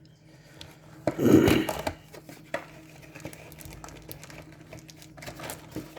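Hands handling a hockey-card booster box and its packs: a louder rustling scrape about a second in, then faint rustles and light clicks.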